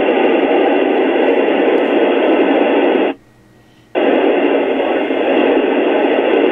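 Radio static from an Icom IC-7600 transceiver's speaker: a loud, steady hiss with no voice on the channel. It cuts out for under a second a little after three seconds, then comes back at the same level.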